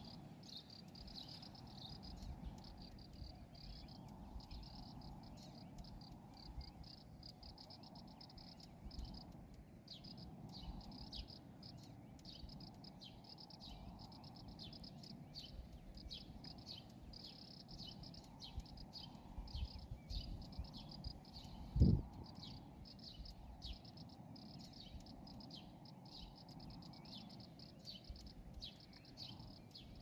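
Crickets chirping in fast pulsed trills, one train after another, over a low background rumble. A single low thump about three-quarters of the way through.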